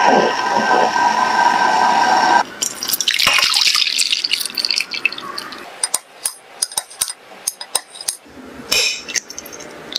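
Coconut water and jelly-powder mixture boiling in a pot, a steady bubbling hiss that cuts off abruptly after about two seconds. Then liquid pours from a glass measuring jug into a glass dish, followed by a run of sharp clicks and taps as a knife cuts the set coconut jelly in the glass dish.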